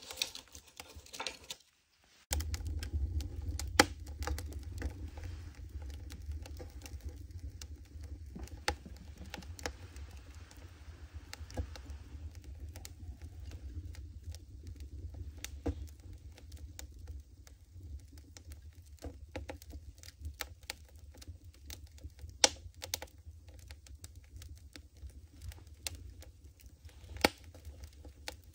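Wood fire burning in a Fisher wood stove's firebox, crackling with many irregular small pops and a few louder snaps, over a steady low rumble.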